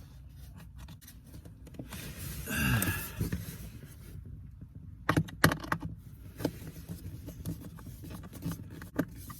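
Faint scraping and rustling with a few sharp clicks as a mounting screw is worked into the HVAC blower fan housing by hand under the dash; most of the clicks come in a cluster about five to six and a half seconds in, with one more near the end.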